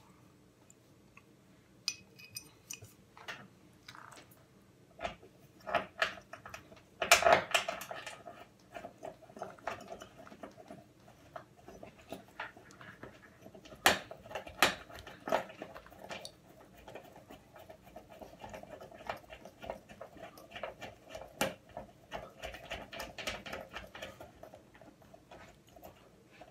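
Hands handling a black plastic door-lock strip and its metal bolt against a door edge: scattered clicks, taps and light rattles, with a few sharper knocks, the loudest cluster about seven seconds in.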